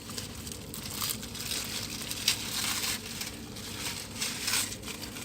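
Paper wrapper of a beef sandwich crinkling and rustling in irregular bursts as it is handled and unwrapped.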